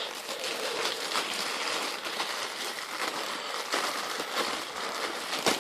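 Plastic packaging crinkling and rustling as it is worked off a new Penny skateboard, with a sharp crackle near the end.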